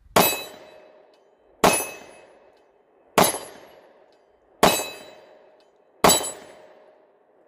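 Five shots from a Ruger MAX-9 9mm pistol, fired at a slow steady pace about a second and a half apart, each trailing off over about a second.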